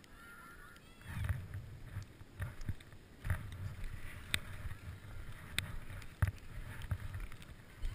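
Alpine skis sliding and scraping over packed snow, a rushing hiss with wind buffeting the microphone that starts about a second in, broken by a few sharp clicks and knocks.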